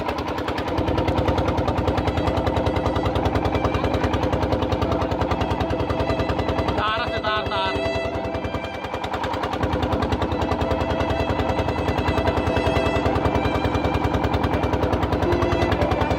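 An engine running with a rapid, even chugging beat, easing off briefly about halfway through, then picking up again.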